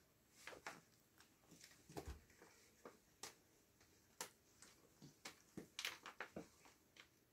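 Faint, irregular rustles and soft clicks as kittens tussle and groom each other on a cushion: fur and paws scuffling against fabric, denser about two thirds of the way through.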